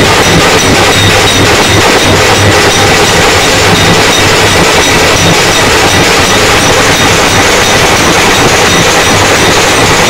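Bombay Nasik drums beaten with sticks together with clashing hand cymbals (manjiras), a dense, continuous din of drumming with cymbal ringing over it. Very loud and recorded close on a smartphone, so the sound is overloaded and distorted.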